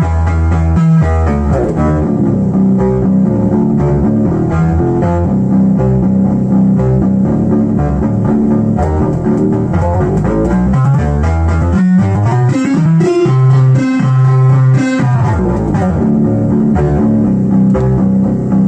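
Synthesizer music from Behringer MS-1 and Pro-1 analog synths run through a Behringer DSP2024P multi-effects unit: a bass line stepping between notes under a higher synth line.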